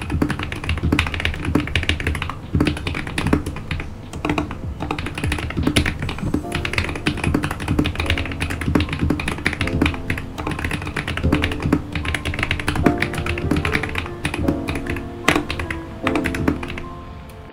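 Continuous fast typing on a Royal Kludge RK100 mechanical keyboard fitted with KTT Kang White linear switches, a creamy, poppy keystroke sound. Background music plays under it.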